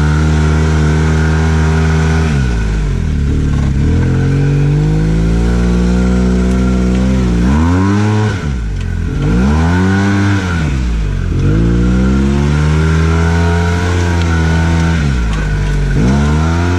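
Arctic Cat Wildcat Trail 700 side-by-side's engine heard from inside the open cab, revving up and down as it is driven over sand: several rises and falls in pitch, with a brief drop about eight seconds in before it climbs again.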